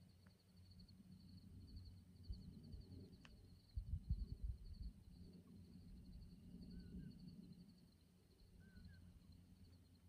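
Faint night insects trilling in a steady, evenly pulsing chirp high in pitch, over a low rumble that swells briefly about four seconds in. A few faint short chirping calls come in the second half.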